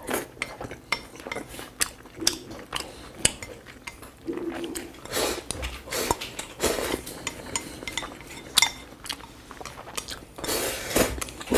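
Wooden chopsticks clicking and scraping on a ceramic plate, in many quick irregular taps, as rice is gathered up and pushed into the mouth. Several short stretches of eating noise come between the taps.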